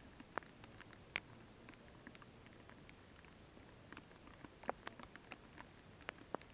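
Faint, irregular clicks and light knocks from a mountain bike on a rough trail, a few each second and more frequent in the second half, over a low hiss.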